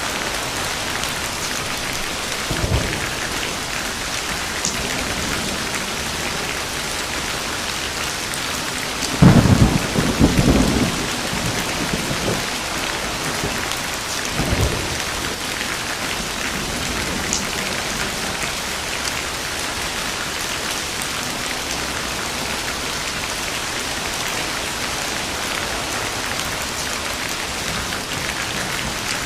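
Steady rain falling with thunder: a loud thunderclap and rumble about nine seconds in lasting a couple of seconds, and shorter, lighter rumbles a few seconds in and around halfway.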